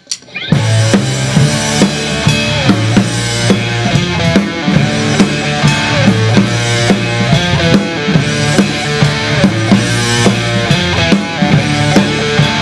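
A live rock band starts a song about half a second in, after a couple of sharp clicks: drum kit, bass guitar and electric guitar playing together on a steady beat.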